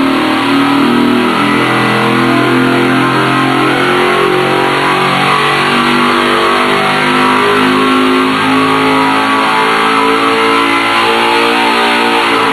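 GM Performance Parts CT525 circle-track crate V8, based on the LS3, running at full throttle on an engine dyno during a power pull, revs climbing from about 4,500 to about 7,000 rpm.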